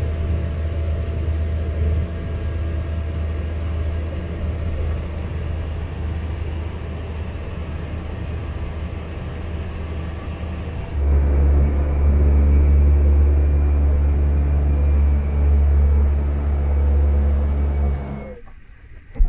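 A Cessna Caravan's PT6A turboprop engine and propeller running at taxi power, heard from inside the cabin as a steady low drone. About eleven seconds in, the drone abruptly becomes louder and deeper, with a steady hum, and it cuts off sharply shortly before the end.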